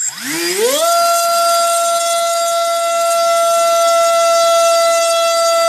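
Cobra 2208 2000 kV brushless motor spinning an HQ 6x4.5 propeller on a thrust stand at 4S, driven by a Rotorgeeks 12A ESC: it spins up with a rising whine in the first second, then holds a loud, steady high whine. The run shows the ESC back in action after its temperature protection had cut the motor out.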